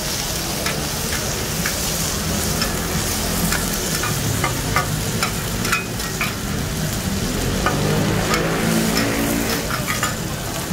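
Oil sizzling steadily on a large flat griddle pan as hoy tod (crispy shellfish-and-egg pancakes) fry, with metal spatulas scraping and clacking against the pan in short irregular clicks.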